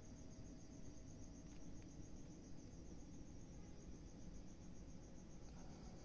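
Crickets chirping faintly: a continuous high-pitched trill made of rapid, even pulses, over a low rumble.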